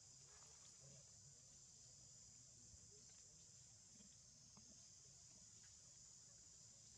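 Near silence with a faint, steady high-pitched insect drone, crickets or cicadas in the trees.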